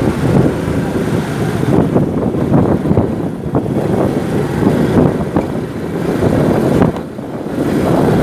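Motorcycle riding through city traffic: engine running, with wind buffeting the microphone.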